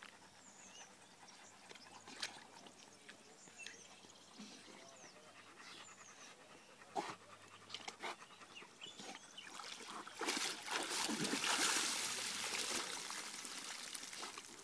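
Leonberger dogs wading through shallow marsh water, with small splashes and drips, and a dog panting. The sound is quiet at first and grows louder from about ten seconds in.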